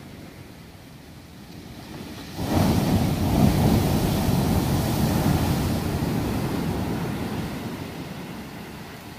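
Ocean wave breaking on a sand beach: a sudden loud crash about two and a half seconds in, then the rush of surf washing up the shore and slowly fading, over a low steady hiss of surf.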